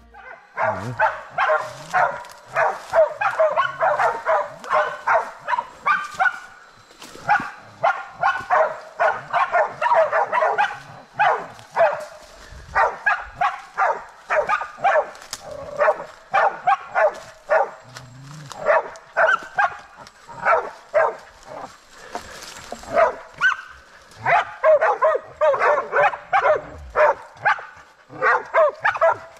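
Bail dogs barking rapidly and continuously with a few brief pauses, holding a wild pig at bay against a tree.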